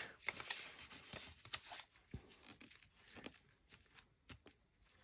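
Faint scratchy rustling of a watercolour brush and paper, strongest for the first couple of seconds, then scattered small taps and clicks.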